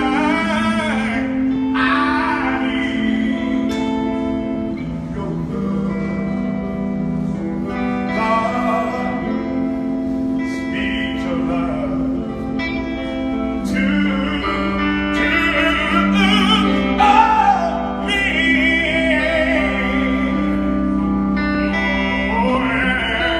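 A man singing a melody over instrumental accompaniment of long held chords.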